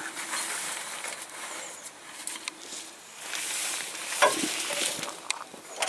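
Scratchy rustling in two spells as a ring spanner is worked on the Panhard rod mounting nut from underneath, with a few sharp metallic clicks and knocks of the spanner on the nut.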